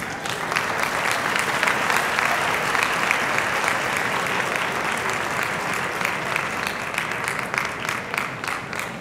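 Audience applauding: the clapping starts suddenly, is fullest in the first few seconds, then slowly dies away.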